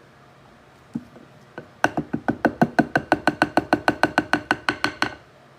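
A utensil striking a ringing mixing bowl in a fast, even rhythm, about six strikes a second for some three seconds, as in hand whisking; a single knock comes about a second before it.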